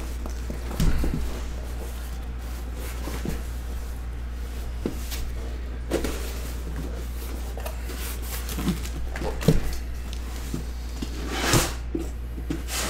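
A cardboard shipping case of trading-card boxes being handled and turned on a tabletop: a handful of separate knocks and scuffs, with a longer scrape near the end, over a steady low hum.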